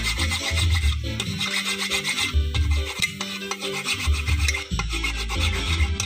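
Hand file rasping back and forth over a fresh weld bead on an aluminium engine oil pan, smoothing the repair, over background music with a repeating bass line.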